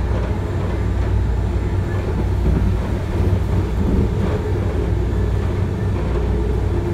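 MBTA Green Line light-rail car running along the track, heard from inside the car as a steady low rumble, with a few faint clicks about three and four seconds in.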